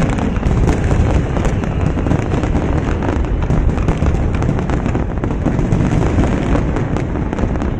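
Aerial fireworks shells bursting in a continuous barrage: a steady low rumble with many overlapping bangs and crackles.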